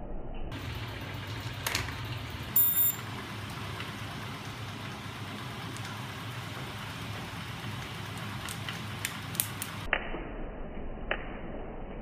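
Electric-motor-driven magnet engine rig running with a steady low hum and hiss while it charges a car-audio capacitor. A brief loud high-pitched sound comes about two and a half seconds in, and a few light clicks come near the end.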